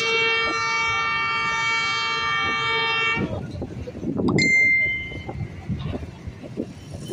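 A horn blown in one long, steady, single-note blast for about three seconds. It cuts off, and about a second later comes a click and a brief high ring, over the hum of traffic.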